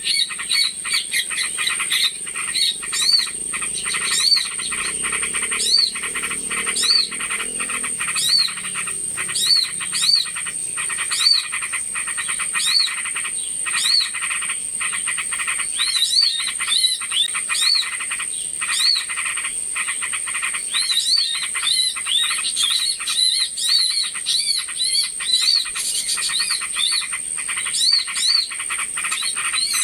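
Bird-lure recording of a busy chorus of small birds: rapid overlapping chirps and repeated short rising-and-falling notes, over a steady high-pitched whine.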